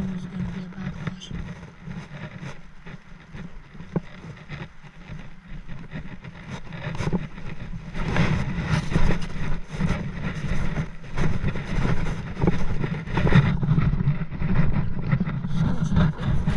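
Wind buffeting the camera microphone: a gusty low rumble that rises and falls, louder from about eight seconds in.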